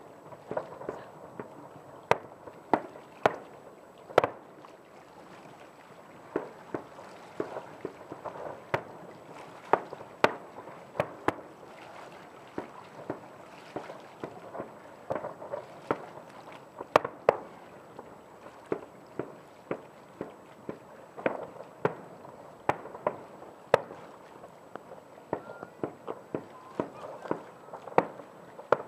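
Distant aerial fireworks shells bursting one after another: sharp irregular bangs, about one or two a second.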